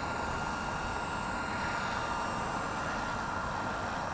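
Blade 230S V2 electric RC helicopter in flight: a steady whine from its electric motor with rotor noise, holding an even pitch.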